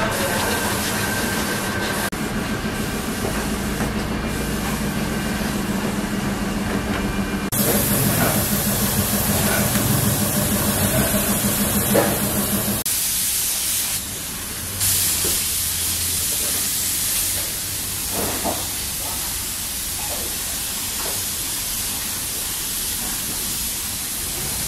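Body-shop work noise: a steady hiss that changes abruptly several times, with a few short knocks.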